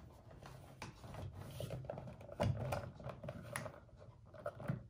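Handling noise of a coiled sonar transducer cable being pushed by hand through a kayak's plastic scupper hole: irregular small clicks, knocks and rustles, with the loudest knock about two and a half seconds in and another just before the end.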